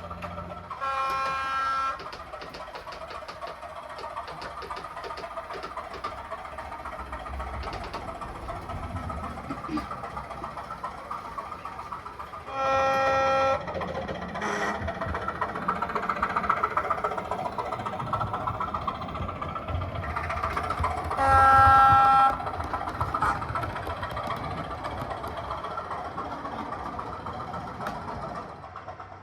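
Class 205 'Thumper' diesel multiple unit sound file playing from an ESU LokSound V5 decoder through the model's small speaker. The diesel engine runs throughout, with three horn blasts of about a second each: one about a second in, one near halfway and one about two-thirds through. The engine sound is busier after the second blast and drops off just before the end.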